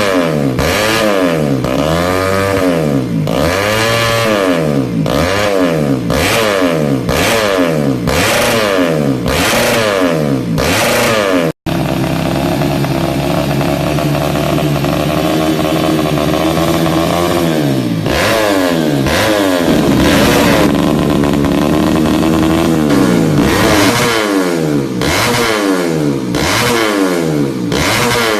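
Yamaha Jupiter Z single-cylinder four-stroke engine revved through a very loud exhaust, in quick throttle blips about once a second. After a brief cut near the middle it is held at a steady rev for several seconds, then blipped again.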